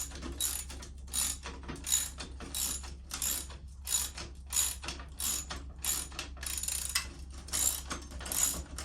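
Hand socket ratchet clicking in repeated back-and-forth strokes, about three strokes every two seconds, as a nut is run down.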